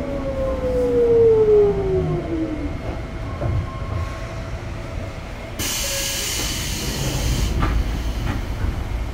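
A Sotetsu 8000 series train's Hitachi GTO-VVVF inverter and traction motors whine steadily downward in pitch as the train slows, the whine dying away about three seconds in. About five and a half seconds in comes a two-second hiss of compressed air, then a couple of light knocks.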